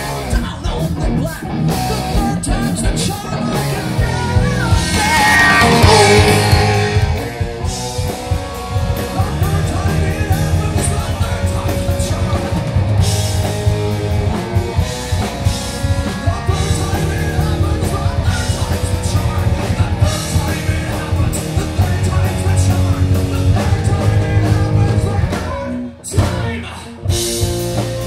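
Live rock band playing loud: electric guitar, bass and drum kit with a singer. About five seconds in, a high sound slides down steeply in pitch. Near the end the band cuts out for about a second around a single hit, then comes back in.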